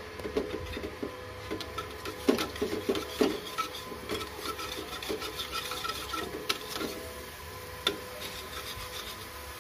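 A metal spatula scraping and tapping around a small frying pan, pushing a pat of margarine about as it melts. The strokes are irregular, busiest about two to three and a half seconds in, then lighter and sparser, with one sharper tap near the end.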